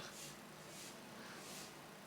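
Faint sizzle of onions frying in oil in a kadai, with three soft scraping strokes of a spoon or spatula as they are stirred.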